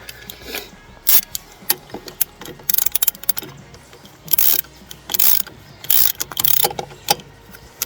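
Hand ratchet wrench clicking in short bursts, about one stroke a second, as a castle nut is run down on the tractor's steering linkage.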